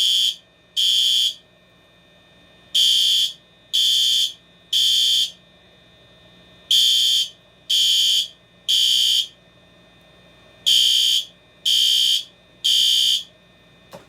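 System Sensor SpectrAlert Advance fire alarm horn sounding its code 3 temporal pattern at the low-volume setting: high-pitched beeps about half a second long in groups of three, each group followed by a longer pause, the standard evacuation signal.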